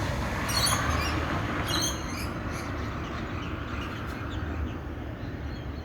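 Birds chirping in two short bursts in the first two seconds, over a steady low rumble.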